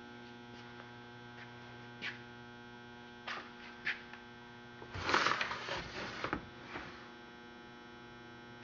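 Steady electrical mains hum, with a few light clicks and knocks and a stretch of rattling handling noise about five seconds in.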